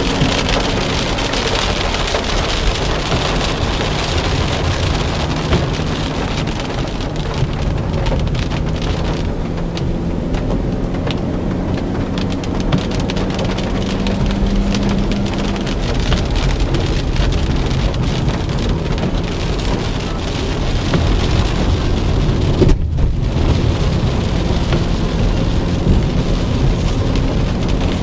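Inside a car's cabin on a wet road: the engine drones steadily under a constant hiss of tyres on the wet surface and wind noise. The engine note climbs slowly and then falls back about two-thirds of the way through.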